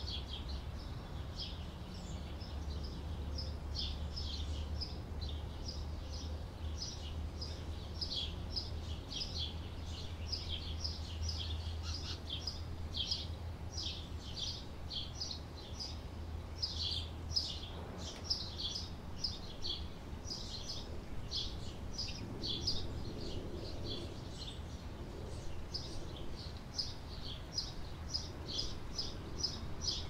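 Caged canaries chirping and twittering continuously, short high notes coming several times a second, over a steady low hum that fades about halfway through.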